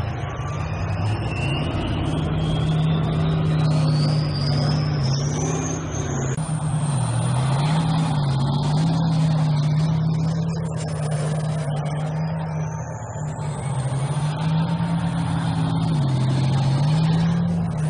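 Tank engines running as the tanks move off: a loud, steady low drone that shifts between two pitches, with a high whine that rises in pitch a few times.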